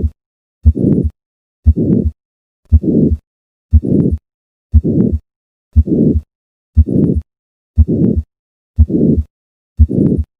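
Heart sounds auscultated at the fourth left intercostal space, about one beat a second. A murmur fills the gap between the first and second heart sounds of each beat: the systolic murmur of hypertrophic cardiomyopathy.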